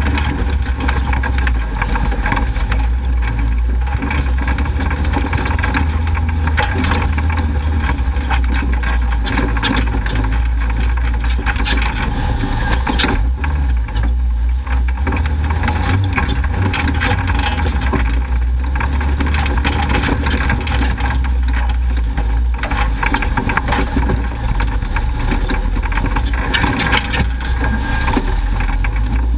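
Off-road race vehicle driving hard over a rough dirt trail: a loud, steady, deep engine and drivetrain rumble with a constant rush of road noise, broken by frequent short knocks and rattles as it hits bumps.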